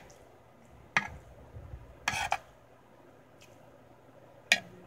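Metal spoon and fork clinking and scraping on a ceramic plate while eating: a sharp clink about a second in, a short scrape a second later, and a loud clink near the end.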